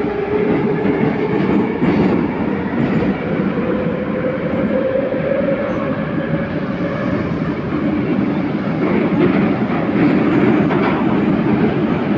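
Inside a moving Minsk Metro 81-714.5 car: the traction motors' whine rises slowly in pitch as the train picks up speed, over a steady rumble of wheels on rail with light clicks from the track.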